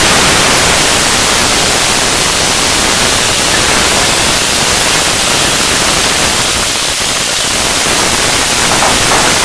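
Loud, steady sizzling of wet, blanched water lily stem pieces frying in hot oil with dried red chilies and black onion seeds.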